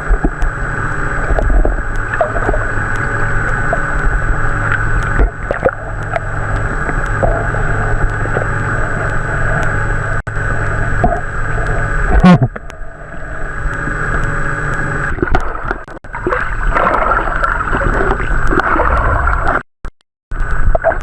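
Steady underwater hum and rumble. About twelve seconds in comes a manatee's sneeze, a single sudden loud burst of air underwater.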